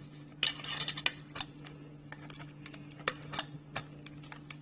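Light clicks and taps from handling a baking pan while cinnamon-roll dough is pressed into it: a quick cluster about half a second in, then scattered single taps, over a steady low hum.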